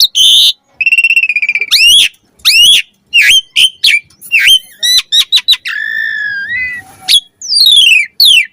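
Asian pied starling (jalak suren) singing a loud, varied song in quick separate phrases. Clear rising and falling whistles, a buzzy trill about a second in, a long held note past the middle, and fast falling sweeps near the end.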